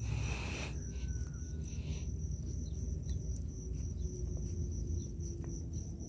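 Hands squeezing and packing crumbly cereal groundbait around a spring feeder: a soft rustle, with a short burst of crunching at the start and a smaller one about two seconds in. Under it runs a steady high-pitched insect trill.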